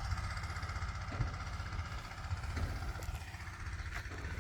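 Mini excavator engine running steadily, with a steady whine that steps up in pitch about three seconds in.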